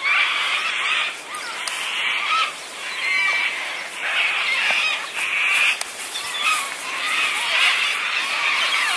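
A flock of birds calling and chattering at once, with many short squawks and chirps overlapping without a break.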